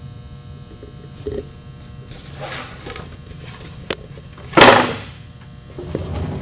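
Workpiece handling at a sliding table saw: a sharp click and then one loud wooden knock about four and a half seconds in, as the panel is set against the stop. A low hum runs underneath.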